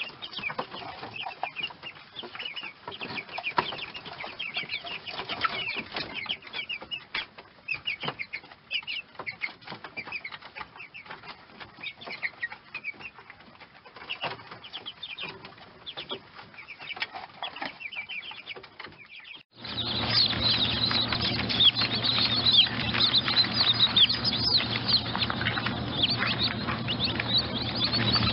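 Baby chicks peeping: a scatter of short, high chirps. About two-thirds of the way through it cuts abruptly to a louder, denser chorus of peeping over a steady low hum.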